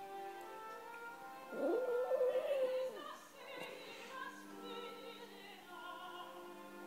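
A West Highland white terrier howling along to opera music: one howl that slides up, holds a wavering note for about a second and a half, and breaks off, louder than the music.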